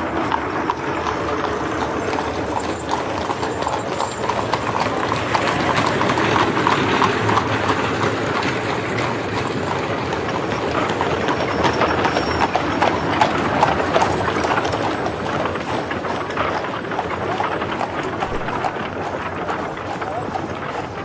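Horses' hooves clip-clopping on a street, many overlapping strikes without a break, over a steady hum of street noise.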